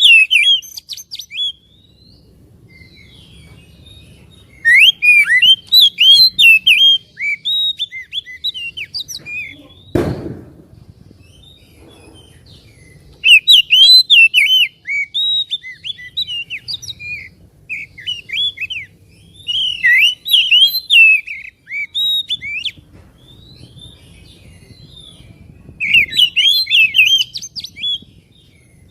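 Oriental magpie-robin singing in bursts of rapid whistled phrases, with pauses of a few seconds between bursts. There is a single thump about ten seconds in.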